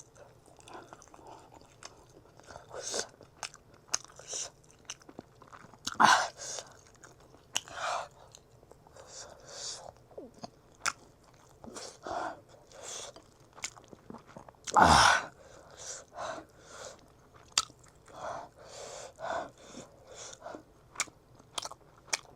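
Close-miked eating: irregular chewing, biting and crunching of food with small wet mouth clicks. One louder, longer mouth sound stands out about two-thirds of the way through.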